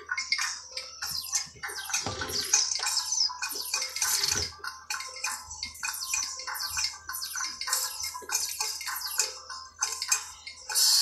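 Background instrumental music with busy, rapid high-pitched percussion that sounds shaken and splashy.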